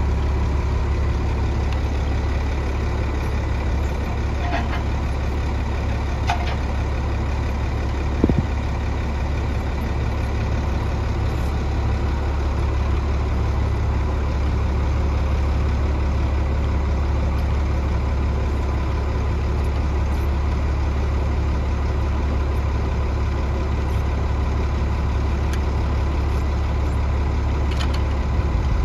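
Dump truck's diesel engine idling steadily with a deep, even hum. A few light knocks sound over it, the loudest about eight seconds in.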